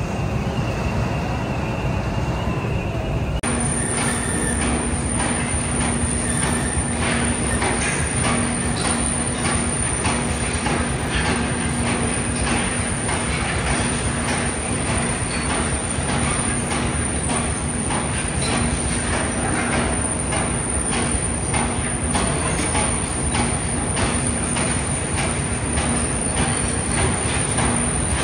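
Bedeschi limestone reclaimer and belt conveyor running: a steady mechanical rumble with rapid, continuous metallic clatter and a steady hum. About three seconds in, the sound changes from a smoother machine hum to this clattering.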